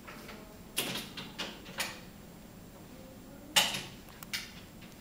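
Scattered clacks and knocks of small toy vehicles handled on a wooden play table, the loudest about three and a half seconds in.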